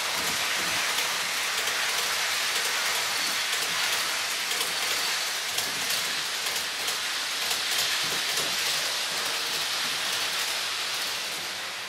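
Model electric passenger train rolling along metal track: a steady rushing rattle of wheels on rail, with faint clicks at the rail joints.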